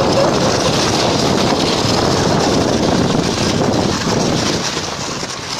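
Wind buffeting the microphone and the rush of a sled sliding fast over snow, a loud even noise that eases off near the end as the sled slows.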